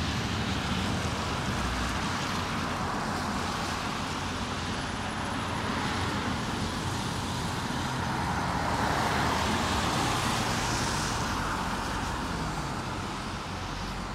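Road traffic on wet pavement: a steady hiss of passing cars' tyres, one vehicle growing louder and fading about two-thirds of the way in.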